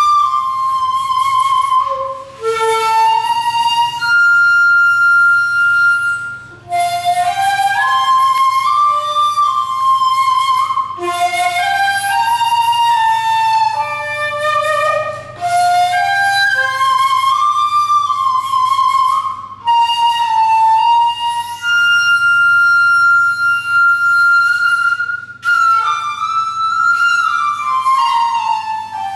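Solo shakuhachi, the Japanese end-blown bamboo flute, playing a slow improvised melody in phrases of a few seconds, each broken by a short pause for breath. Some notes are held long and high, and others slide between pitches, with a falling glide near the end.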